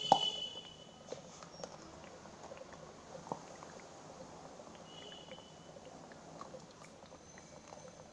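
Plastic glue bottle being squeezed as glue is poured into a bowl: a sharp click and a brief squeak at the start, then faint scattered crackles and ticks.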